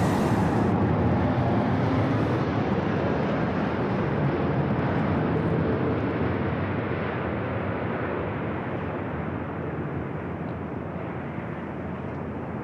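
Jet engines of a large airliner passing by, a steady rushing rumble that slowly fades as the aircraft moves away.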